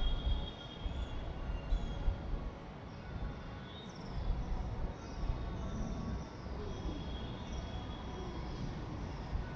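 Outdoor evening ambience: a steady low rumble, with a run of short, high chirps falling in pitch from birds in the second half.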